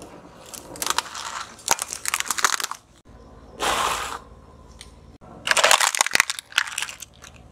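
Plastic objects cracking and crunching under a slowly rolling car tyre, in several separate bursts of dense crackling. About halfway through there is a smoother, hiss-like squash of a softer item being flattened.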